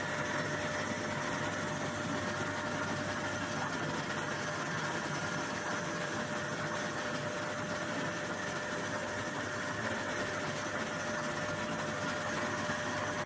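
Motor-driven soybean washing machine running steadily, an even mechanical hum with a faint steady whine, as its paddles churn the soybeans in the tub.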